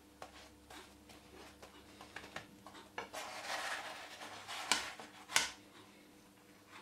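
Wooden spatula scraping across a nonstick frying pan as it slides under a cooking lavash flatbread, followed by two sharp knocks against the pan as the bread is lifted and flipped. Scattered light ticks and clicks come before.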